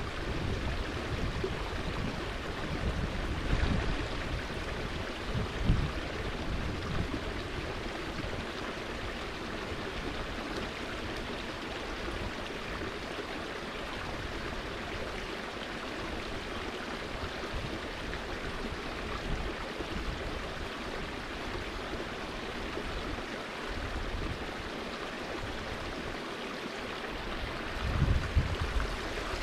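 Steady rush of running water from a stream, with wind buffeting the microphone at the start and again near the end.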